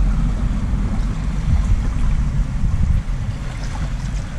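Water sloshing around legs in waders as they wade through a shallow river, mixed with wind on the microphone, heard as a low, uneven rumble.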